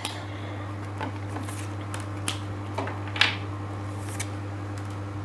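Tarot cards being drawn from the deck and laid down on a table: a handful of short slides and soft taps, the loudest about three seconds in, over a steady low hum.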